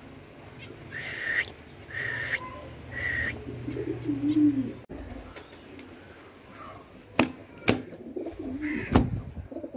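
Domestic pigeons cooing, low coos that bend up and down in pitch. Three short higher calls come about a second apart near the start, and a few sharp cracks sound in the last few seconds.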